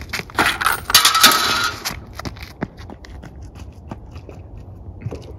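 A loud clatter of clinking and scraping at a metal patio table lasts about a second and a half near the start. A run of light footsteps on pavement follows.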